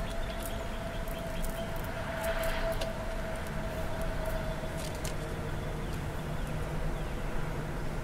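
Steady low background hum with a faint steady tone that fades out about halfway through, and a few light clicks of faceted glass beads shifting in a hand.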